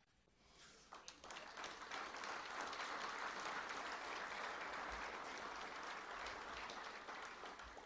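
Audience applauding, starting about a second in, building to a steady level, then dying away near the end.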